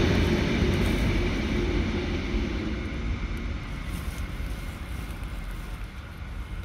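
Diesel-electric locomotives running light, their engines rumbling with wheel noise on the rails, fading steadily as they move away.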